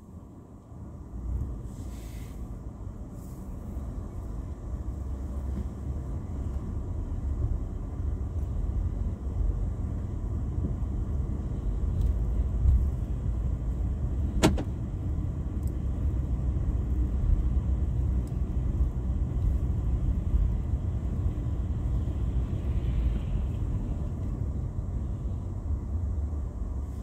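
Car driving on a highway, heard from inside the cabin: a steady low rumble of road and engine noise that grows louder over the first several seconds and then holds. A single sharp click about halfway through.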